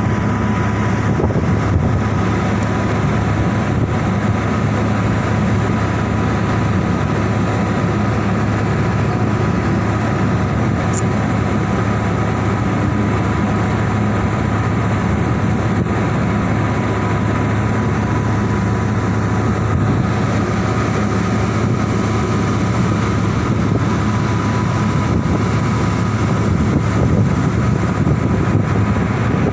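Ship's diesel engine running steadily: a constant low drone with a thin steady tone above it.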